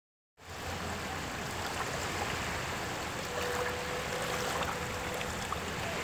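Small waves lapping onto the shore in shallow water, a steady wash of water. A faint steady tone joins about three seconds in.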